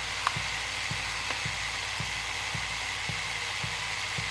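Two HO slot car motors, an Auto World X-Traction and a Tyco 440 narrow pan chassis, running steadily at about 8 volts on a bench dyno: a steady whine and hiss with a light tick about twice a second.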